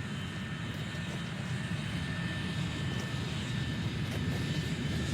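Aircraft engine droning steadily and slowly growing louder, with a faint steady high whine above the low rumble.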